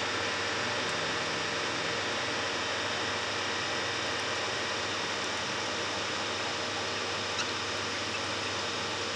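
Maho MH 600 E horizontal mill drilling through a metal block with a long twist drill: a steady machine hum and cutting noise.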